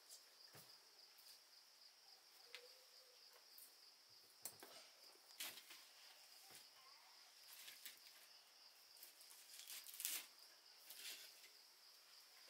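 Scattered small snaps and clicks of dry twigs being laid into a wood-fired mud stove and catching alight, the sharpest about ten seconds in. A faint steady high insect chirring runs underneath.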